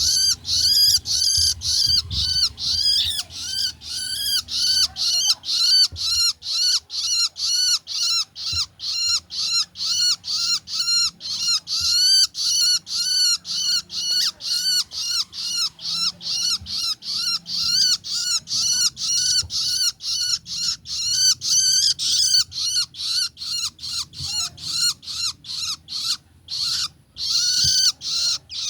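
Young long-tailed shrike (cendet) calling over and over: short, harsh, arched notes about three a second, with a brief pause near the end.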